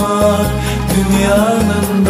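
Music: a song passage with a sliding, wavering melody line over a pulsing bass.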